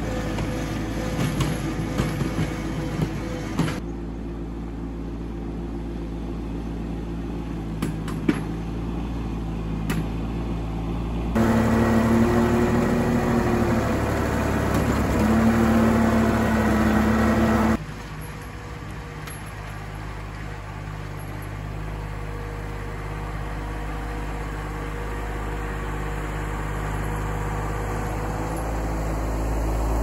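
John Deere 2210 compact tractor's three-cylinder diesel engine running steadily while pushing snow with a front plow, with a few sharp clicks. Past the middle it grows louder for several seconds, its pitch dipping and rising, then drops back abruptly.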